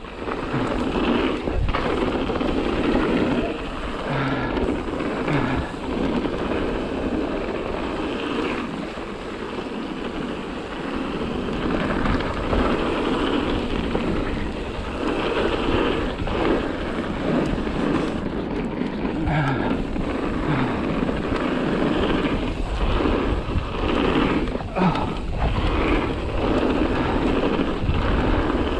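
Mountain bike being ridden along a trail: a steady rush of wind on the microphone and tyre noise over the dirt, with frequent knocks and rattles from the bike over bumps.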